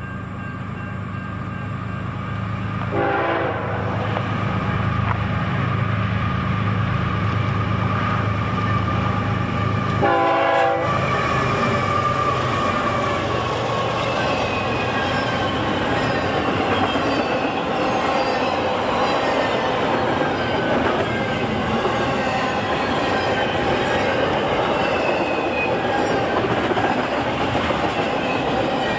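Diesel locomotive passing, with two short horn blasts about three and ten seconds in, then the steady rumble and clatter of the train's cars rolling by.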